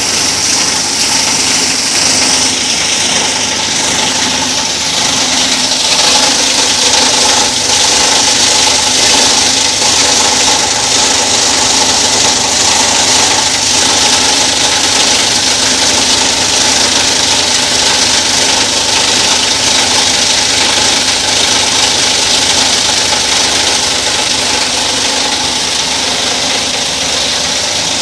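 Plastic grinder (crusher) machine running loud and steady, its blades chewing up plastic with a dense, continuous crackle over the motor's hum.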